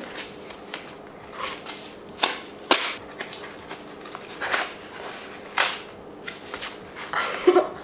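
Thick paper straw packaging being cut and torn open by hand: irregular sharp crackles and rips, several seconds of paper handling.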